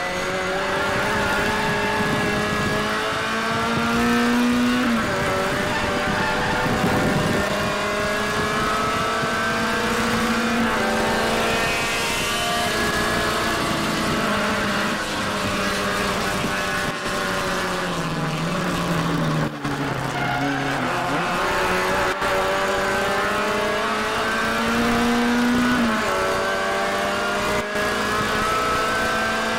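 Classic Mini's four-cylinder A-series engine racing at high revs, heard from inside the cabin; the note climbs for several seconds and drops back with each gear change, over and over.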